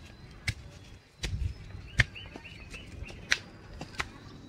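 Footsteps climbing concrete stairs, flip-flops slapping at irregular intervals, with a bird chirping a quick run of notes a little past two seconds in.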